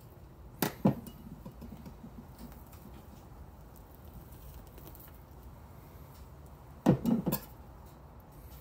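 A knife and hands working a goose carcass on a tabletop, cutting and pulling the breast meat free. The loudest sounds are two short clusters of sharp knocks, one about a second in and another near seven seconds in.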